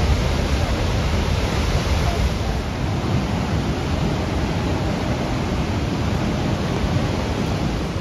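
Steady roar of the American Falls at Niagara: falling water heard as an even, unbroken rushing noise, heaviest in the low end.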